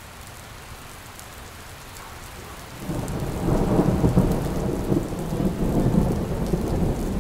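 Steady rain, joined about three seconds in by a long, low roll of thunder.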